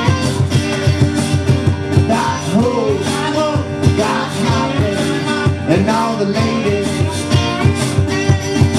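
Live band music: guitars and drums playing a country-rock song, with a melody line that bends up and down in pitch and no words sung.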